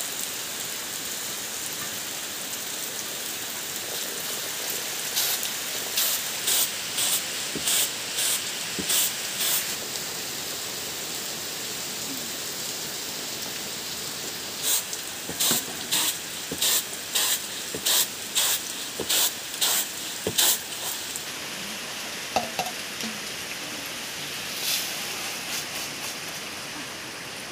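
Steady rain falling, with two runs of rhythmic swishes, nearly two a second, as rice grains are shaken on a flat bamboo winnowing tray. Near the end there is a single softer rush.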